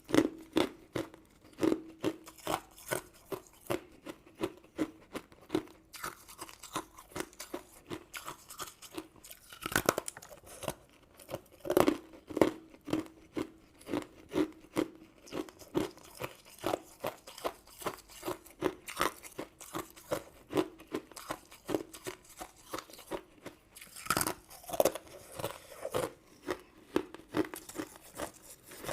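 Close-miked chewing of crunchy sugary sweets: a steady run of crisp crunches, about two a second, with a few louder bites along the way.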